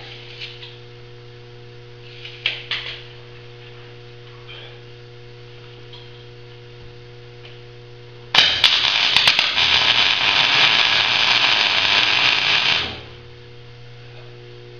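MIG welding arc running for about four and a half seconds from about eight seconds in, starting with a few sharp clicks as the arc strikes, then a steady dense crackle that cuts off sharply. A steady electrical hum runs underneath throughout.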